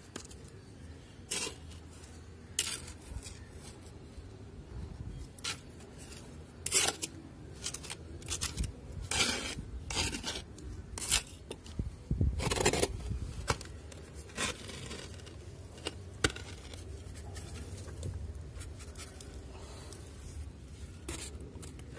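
Dry potting soil being scraped and scooped out of a flower pot by hand and with a small tool: irregular scrapes and rustles, with sharper scrapes against the pot wall, busiest in the middle.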